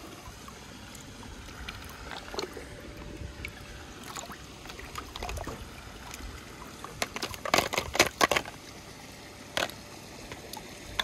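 Plastic toy scoop sloshing and splashing through swimming-pool water as it lifts a toy car out. About seven seconds in comes a quick run of sharp splashes and knocks, with one more near the end.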